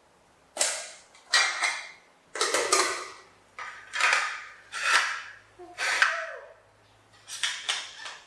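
Dishes being handled: a run of sharp clinks and knocks as rice is served onto ceramic plates with a paddle, the plates are set down on a hard floor, and a spoon knocks against a bowl. The knocks are irregular, roughly one every second.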